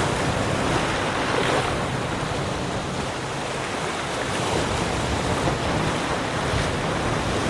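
Ocean surf washing onto a beach: a steady rushing of waves, swelling with a louder wash about a second and a half in.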